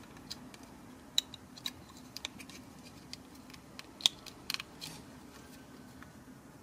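Sharp plastic clicks and taps from a Transformers Titans Return Deluxe Misfire figure's joints and parts being moved by hand. The clicks are scattered, with the loudest about a second in and about four seconds in, and a quick run of clicks just after that.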